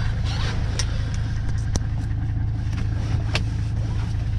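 Old Mercedes-Benz car being driven, heard from inside the cabin: a steady low engine and road drone. A few sharp clicks sound over it, about one second apart.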